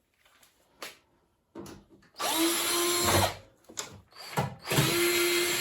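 Electric screwdriver running twice, each time for about a second, its motor spinning up and then holding a steady pitch as it undoes a screw.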